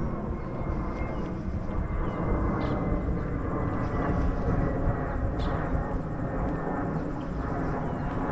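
Steady low outdoor rumble of street ambience, with a few brief high chirps about two and a half and five and a half seconds in.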